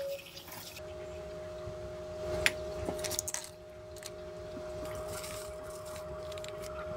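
Tap water splashing over a mug in a stainless steel sink for the first second, then a steady low hum with a few light clicks and taps of containers being handled around the middle.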